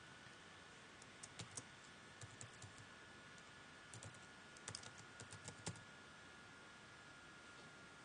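Computer keyboard being typed on: about a dozen keystrokes in quick irregular clusters, stopping about two seconds before the end, over a faint steady tone.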